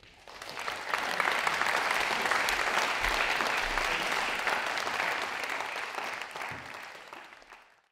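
Lecture audience applauding, swelling within the first second and fading out near the end.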